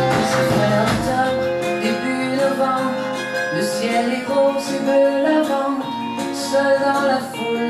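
Background music: an acoustic song with guitar.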